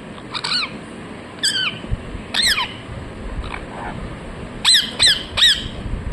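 Ringneck parrot giving short, sharp chirping calls, six in all: three about a second apart, then three in quick succession near the end.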